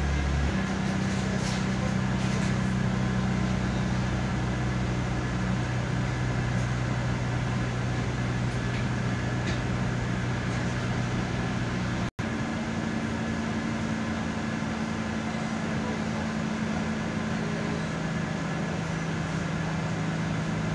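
On board an SA139 diesel railcar: the engine drones steadily with a low hum under the running noise as the train comes into a station. The sound drops out for an instant about twelve seconds in.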